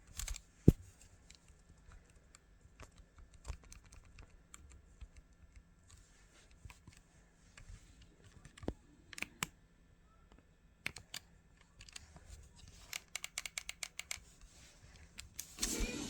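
Quiet room with scattered small clicks and taps: one louder click about a second in and a quick run of clicks near the end. Music starts just before the end.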